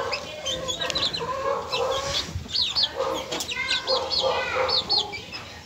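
Chickens clucking in low, repeated notes, with many short, high peeps from month-old chicks scattered through.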